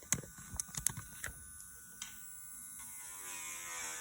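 A few sharp clicks and taps in the first second or so, then an AIRSEE electric nail drill's handpiece motor running with a steady, even whine that builds from about three seconds in.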